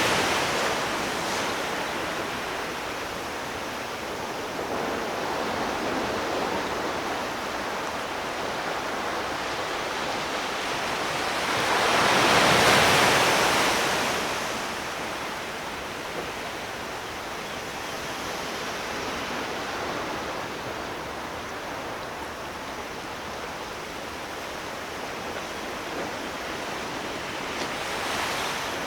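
Ocean surf: a steady rush of waves washing in, with one wave breaking louder about twelve seconds in and a smaller swell near the end.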